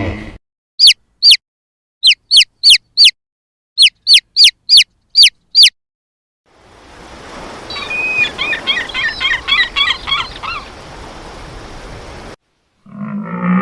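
Bird chirps: short, sharp calls that each sweep downward, in groups of two, four and six over the first six seconds. After a pause, a busier, overlapping chattering of chirps comes over a steady hiss and stops short near the end.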